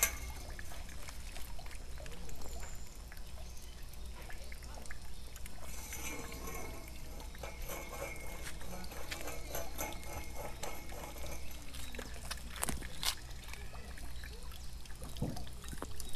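Water trickling steadily, with two sharp clicks close together about thirteen seconds in.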